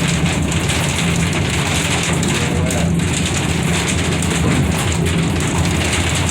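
Heavy rain drumming steadily on the aerial tram car, a dense unbroken hiss over a steady low hum.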